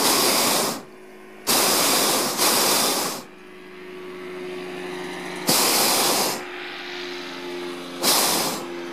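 Hot-air balloon's propane burner firing in short blasts, a loud hiss: one blast ends about a second in, then three more follow, the last one brief. A faint steady hum runs in the pauses between blasts.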